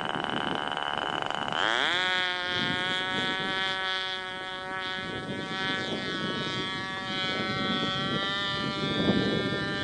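Small model-airplane engine buzzing. It runs up to full throttle with a sharp rising whine about two seconds in, then holds a high, steady buzz as the RC plane rolls down the runway and climbs away. A rush of noise comes near the end.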